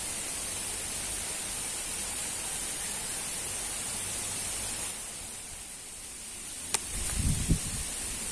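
Steady outdoor hiss with a brighter high band, softening for a moment, then a single sharp click about seven seconds in followed by low rumbling on the microphone.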